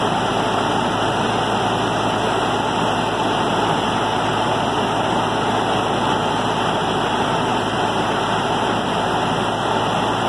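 Heavy diesel engine of a grapple-loader debris truck running steadily while its hydraulic boom swings a clawful of debris up into the truck's bed.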